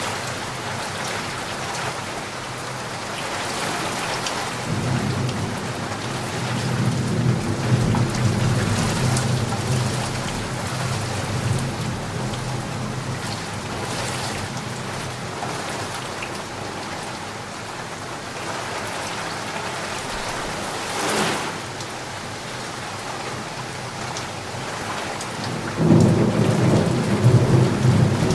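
Steady heavy rain with thunder: a low rumble swells about five seconds in, a brief sharp crack comes about two-thirds of the way through, and a louder rumble rolls in near the end.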